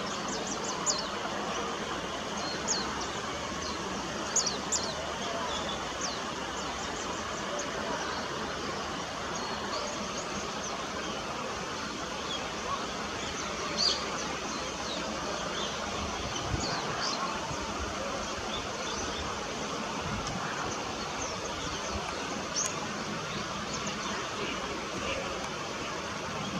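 Small birds chirping, with short high calls scattered throughout, over a steady background hiss of outdoor noise.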